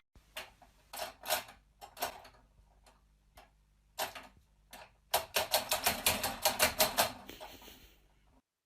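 A series of sharp clicks or taps: a few scattered ones at first, then a quick run of about five a second starting about five seconds in, which fades near the end.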